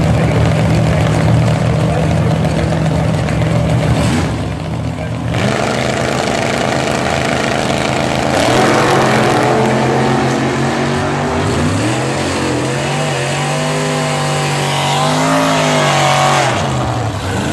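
Drag-racing car engines at the starting line: first a steady, loud run, then after a short break engines revving with rising and wavering pitch. In the last few seconds a gasser sedan's engine is held at high revs during a burnout, and it cuts off near the end.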